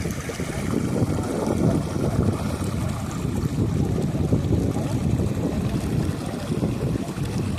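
River water flowing as a steady rushing noise, with a heavy, uneven low rumble from wind on the microphone.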